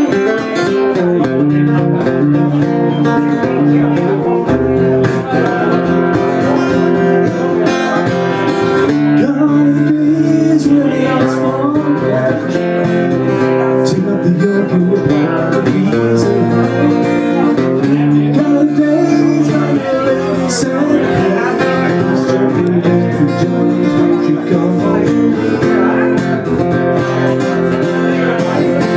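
Acoustic guitar played continuously while a man sings.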